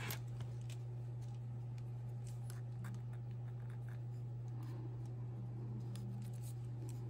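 Faint handling sounds as a wooden shawl pin's stick is worked through knitted yarn: soft scattered scratches and light clicks of wood and fingers on the wool, over a steady low hum.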